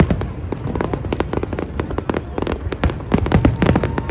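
Fireworks display: a dense, irregular barrage of sharp bangs and crackles, several each second, with no let-up.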